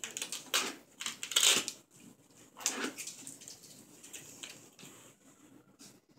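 Cardboard gift box being handled and opened, with scraping and rustling in a few short bursts, the loudest about a second and a half in.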